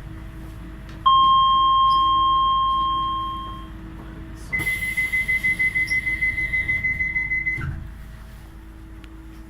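DLR train door signals: a single chime rings out about a second in and fades, then about three seconds of rapid beeping, some seven beeps a second, warn that the doors are closing, ending in a dull thud.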